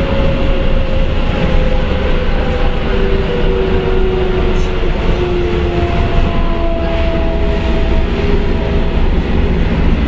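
Sendai Subway Namboku Line 1000 series train (car 1215) running, heard from inside the car: a steady rumble of wheels and running gear, with the traction motors' whining tones sliding slowly down in pitch.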